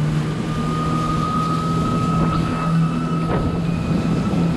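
Kawasaki Ultra 310's supercharged four-cylinder engine running steadily at cruising speed over the water. A thin high whine sits above it for about three seconds.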